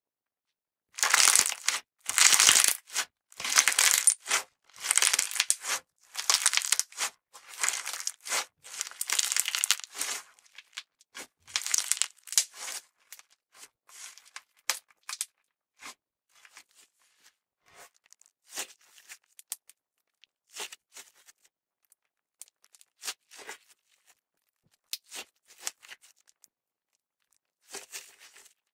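Purple glitter slime squished and stretched by hand, making loud crackling, popping squelches about once a second, then quieter, scattered crackles from about ten seconds in.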